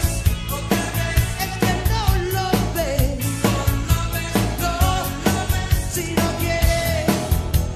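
Spanish-language rock song with a singer over a steady drum beat.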